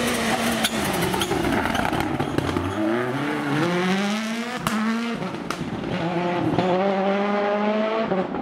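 World Rally Cars' 1.6-litre turbocharged four-cylinder engines revving hard on a tarmac stage, the pitch climbing and dropping with gear changes. Sharp exhaust pops and cracks run through it, the loudest crack about four and a half seconds in.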